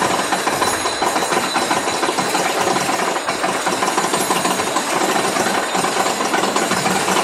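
Mine train roller coaster cars rattling along the track with a fast, continuous mechanical clatter.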